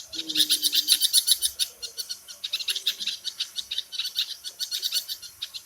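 Small birds chirping in a rapid, steady stream of high chirps, many a second, loudest in the first two seconds.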